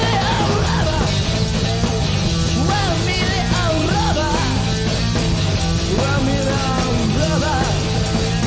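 A live rock band playing loud punk-style rock: electric guitar playing wavering, bending melodic lines over sustained bass and drums.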